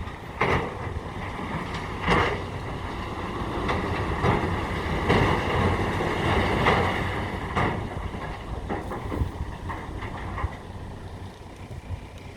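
Dump truck running while it tips a load of hardcore stone, with a steady low rumble, irregular knocks and wind buffeting the microphone.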